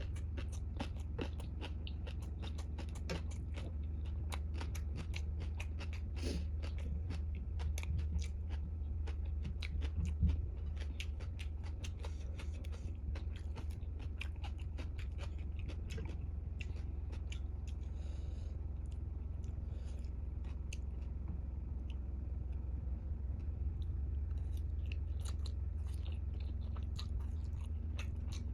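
Close-miked chewing and biting of a spicy ramen meal: a continual run of small wet mouth clicks and crunches, over a steady low hum.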